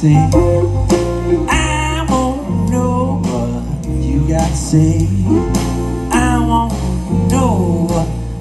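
Live blues-rock band playing an instrumental passage: electric guitar lead with bending notes over bass and drums.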